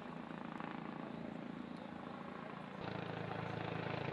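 Outdoor city ambience dominated by a steady low engine drone, stepping up louder about three seconds in.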